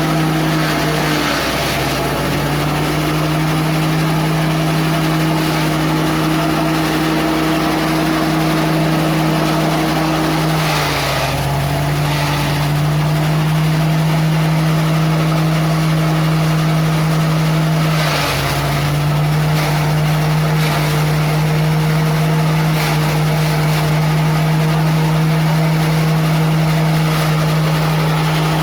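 Engine-driven chopper machine running steadily, its engine note dipping three times as date palm fronds are fed in, with several short bursts of shredding noise.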